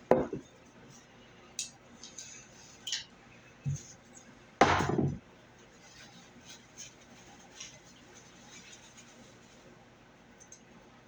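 Scattered light clinks and taps of a fork on a plate and a glass at a meal, with one louder, half-second sound about four and a half seconds in.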